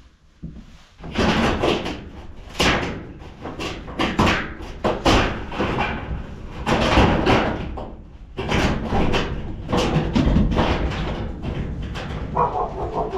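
Irregular bangs, slams and clattering of an animal enclosure being taken apart, starting about a second in and going on in quick succession, loud enough to startle.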